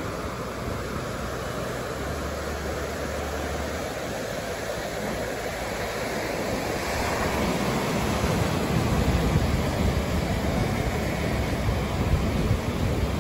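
Ocean surf breaking and washing up a sandy beach, mixed with wind rumbling on the microphone; the rush grows louder about seven seconds in.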